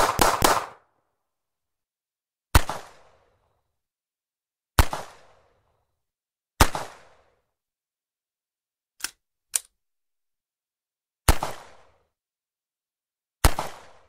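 .38 revolver gunshots: several shots in quick succession at the start, then single shots about every two seconds, each trailing off in a short echo. Two short, sharp clicks come a little after nine seconds in.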